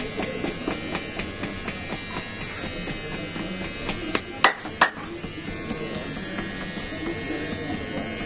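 A small electric motor buzzing steadily, with three sharp clicks in quick succession about halfway through.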